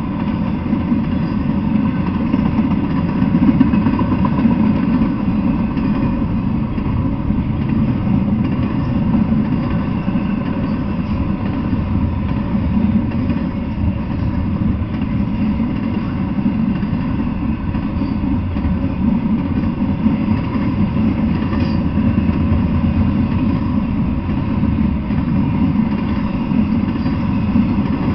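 Double-stack intermodal freight train rolling past: a steady, loud, low noise of steel wheels running on the rails, with no breaks or sudden clanks.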